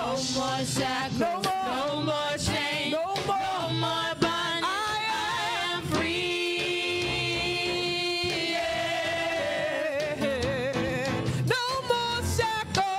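A gospel song sung by a women's praise team into microphones, their voices together in harmony, with one long held note a little past the middle.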